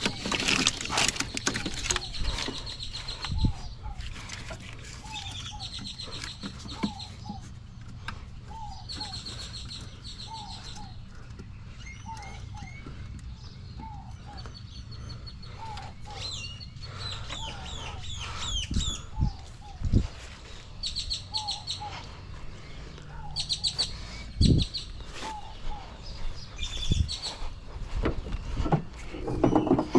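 Birds chirping and calling over and over, with short high trills and a regular run of shorter, lower notes. A steady low hum runs underneath, and a few knocks come at scattered moments.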